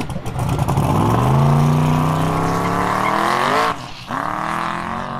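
Drag car launching off the line, its engine note climbing steadily under full acceleration. The note drops abruptly at a gear change a little under four seconds in, then climbs again and fades as the car pulls away.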